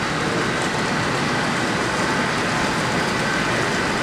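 A train running by with a steady, even rumble.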